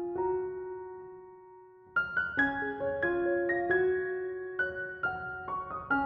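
Background piano music: a held chord dies away, then a run of notes picks up again about two seconds in.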